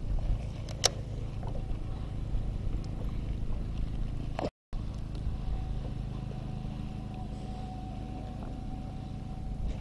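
Low, steady hum of a boat motor running on the lake, with a single sharp click about a second in.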